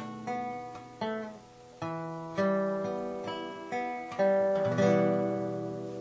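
Acoustic guitar outro music: a series of plucked chords, each ringing and decaying, the last struck about four seconds in and left to fade.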